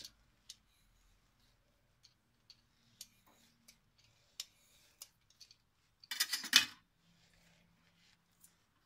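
Plastic potato peeler scraping the skin off asparagus stalks: faint scattered scrapes and clicks, with a louder scrape of about half a second around six seconds in.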